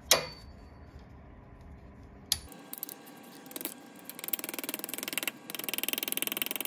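A pointed body hammer, made from a ground-down cobbling hammer, tapping a stainless steel drip rail molding against a steel bench vise to smooth out rough spots after the dents were worked out. One sharp metallic strike comes at the start and another about two seconds later. From about two and a half seconds in there is a rapid, even run of light taps, with a short break near five seconds.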